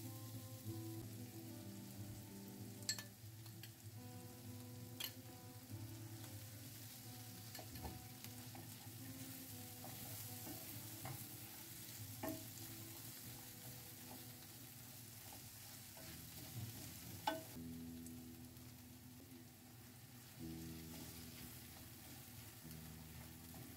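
Onions and spices sizzling in oil in a non-stick frying pan while a wooden spatula stirs them, with a few sharp knocks of the spatula against the pan. Background music plays underneath.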